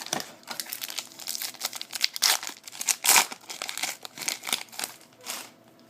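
Plastic trading-card pack wrapper being torn open and crinkled by hand, a run of quick irregular crackles that is loudest two to three seconds in and thins out towards the end.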